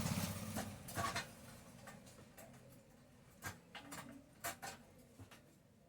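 A series of light clicks and knocks, scattered irregularly, from small hard objects being handled.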